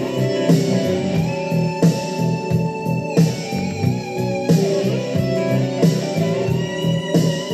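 Rock music led by electric guitar, with a steady beat.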